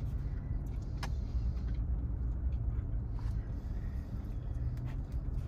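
Steady low rumble like a car engine idling, heard from inside the cabin, with a couple of faint clicks.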